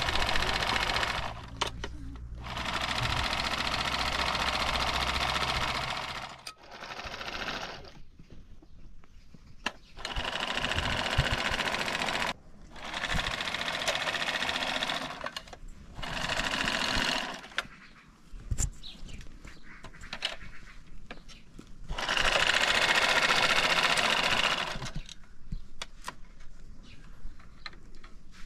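Sewing machine stitching in runs of one to four seconds, stopping and restarting several times, with small clicks in the pauses between runs.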